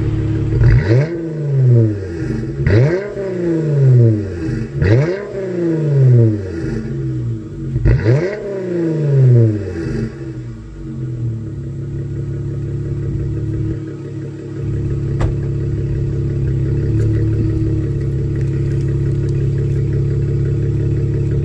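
2019 Dodge Challenger GT's 3.6-litre V6 exhaust through Cherry Bomb Xtreme mid mufflers, with the resonators deleted and straight pipes to quad tips. It gives four quick throttle blips, each rising sharply in pitch and falling back, then settles to a steady idle.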